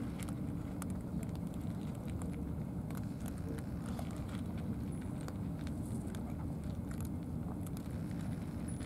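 Cats crunching dry kibble: scattered small, sharp crunches over a steady low rumble.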